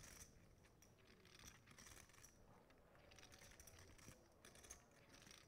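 Near silence with faint, scattered light clicks, typical of poker chips being handled at the table.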